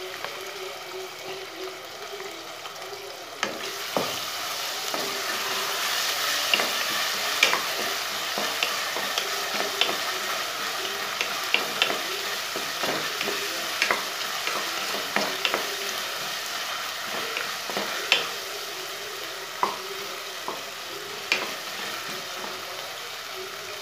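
Onions and ginger paste frying in hot oil in a pressure cooker pot, sizzling steadily, while a wooden spatula stirs and knocks against the pot in short clicks. The sizzle gets louder about three and a half seconds in.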